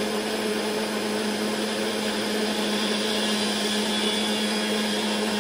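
Electric blender running steadily at full speed, blending pancake batter of oats, egg, milk and banana: an even whirring rush over a constant motor hum.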